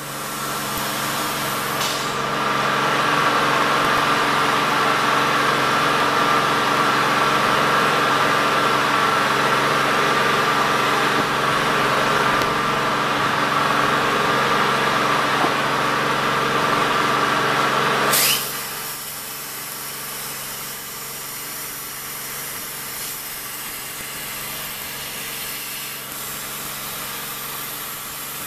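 CNC plasma cutter and its machinery running on steel plate: a loud steady hiss and whine over a constant machine hum. About eighteen seconds in the loud hiss cuts off suddenly, leaving a quieter steady hum.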